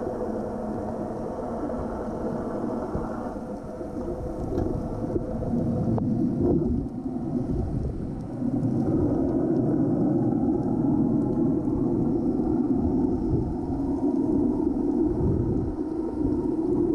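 Muffled underwater rumble and water movement recorded with the camera submerged, as snorkelers kick with fins around it. It gets louder about eight seconds in.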